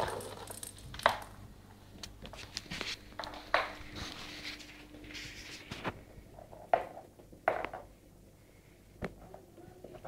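Scattered taps and knocks with some rustling, a baby's hands and knees on a laminate floor as it crawls.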